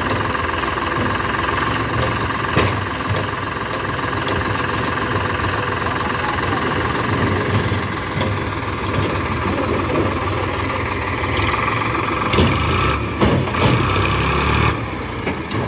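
Eicher 557 tractor's three-cylinder diesel engine running steadily with a diesel clatter while it works the hydraulic tipper. About twelve seconds in, a burst of rushing noise rises over it for a couple of seconds.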